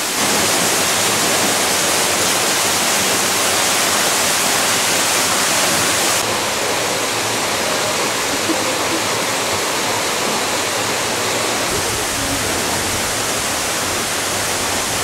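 Waterfall close by: a steady, loud rush of water falling off a rock ledge, dropping a little in level about six seconds in.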